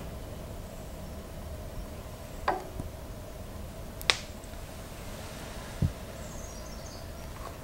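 A few short, sharp metallic clicks and a knock from the clamping lever on the swivel cutter head of a D-bit tool and cutter grinder as it is loosened and locked again to reset the grinding angle, over a faint steady hum.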